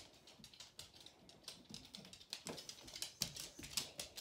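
Dog moving about and searching, making an irregular run of faint, light clicks and taps, several a second.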